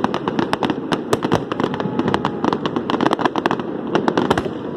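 Fireworks going off in a dense, rapid run of sharp cracks and pops over a steady low rumble.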